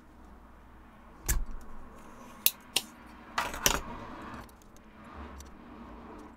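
Small sharp metallic clicks and clinks from tools and a circuit board being handled on a desk: one about a second in, then a quick cluster over the next two and a half seconds.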